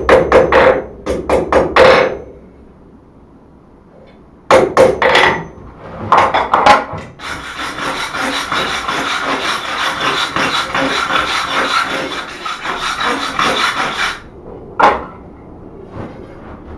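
Hand hammer striking a hot steel bar on an anvil in quick blows, then a second group of blows about four seconds in. From about seven seconds a steady scrubbing runs for about seven seconds as a wooden-backed brush is worked along the bar on the anvil face, and there is a single knock near the end.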